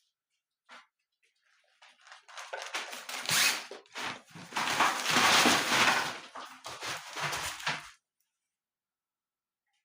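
A puppy scrambling through an agility tunnel: uneven rustling of the tunnel with scuffs and bumps, starting about two seconds in, loudest in the middle, and stopping suddenly near eight seconds.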